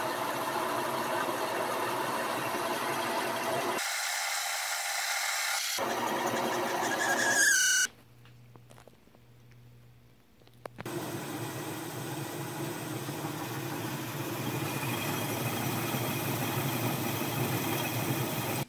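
Homemade Gingery metal lathe running, its belt-driven headstock turning a bar while the cutting tool takes a turning cut. There is a brief squeal about seven seconds in, then a sudden drop to a faint hum for about three seconds before the running and cutting noise comes back.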